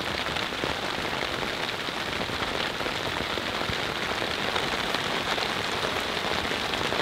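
Steady rain falling: an even hiss of many small drops that holds at one level throughout.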